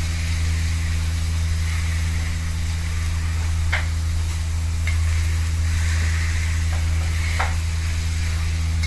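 Beef and garlic sizzling in an aluminium wok as a spatula stirs and scrapes them, with three sharp clicks of the spatula against the pan, over a steady low hum.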